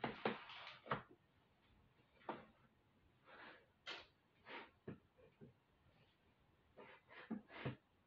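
Faint, scattered clicks, knocks and rustles of someone rummaging through beading supplies and their containers, with the sharpest knocks near the start and a couple more near the end.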